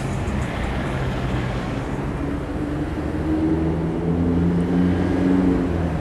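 Street traffic: a car engine running close by over a steady traffic hum, with a low engine drone that grows a little louder about four to five seconds in.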